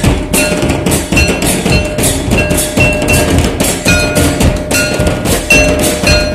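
Traditional folk drums beaten in a quick, steady rhythm, with short ringing notes sounding over the strikes.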